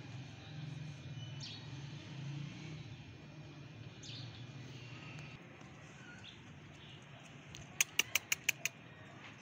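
Birds chirping over a steady low hum: a few faint short chirps, then a quick run of six sharp chirps near the end.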